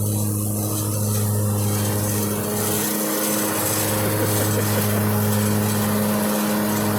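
Zero-turn riding lawn mower's engine running steadily, a constant hum, with a rushing noise that grows louder about two seconds in.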